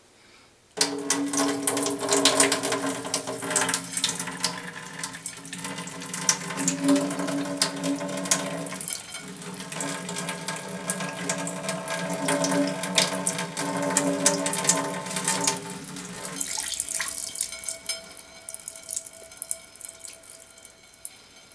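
Water running out of an upturned plastic water bottle into a stainless steel sink, a steady splashing stream. The bottle has partly frozen into slush after being supercooled, and the liquid left in it is what drains out. About sixteen seconds in the stream gets weaker and thinner.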